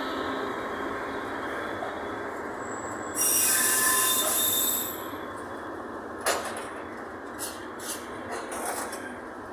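Freight train's container wagons rolling past on the rails with a steady rumble, and a loud, high-pitched wheel squeal for about two seconds near the middle. Sharp clicks and knocks follow as the last wagons go by.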